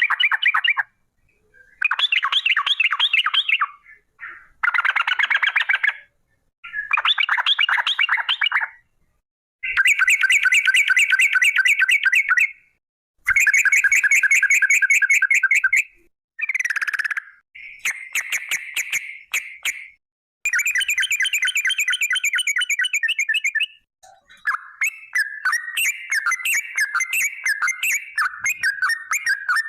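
Yellow-vented bulbul (trucukan) singing its long rapid chattering trills in bursts of two to three seconds with short pauses between them. Near the end the trills run into an unbroken warbling song.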